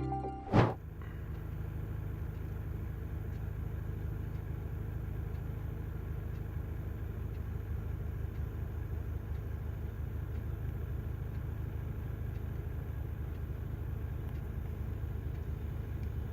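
A machine's engine running steadily with a low, evenly pulsing rumble. Less than a second in there is a single sharp loud click.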